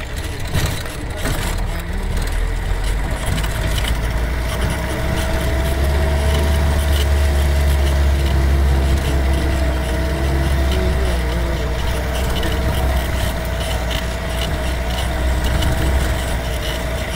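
Engine of a local passenger vehicle running steadily as it drives up a rough gravel mountain track, heard from on board: a constant low rumble with the body rattling and knocking over the bumps.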